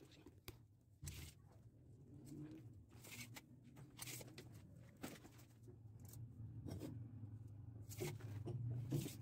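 PVC drain pipes and fittings being handled and fitted: a few scattered short knocks and scrapes over a faint, steady low hum.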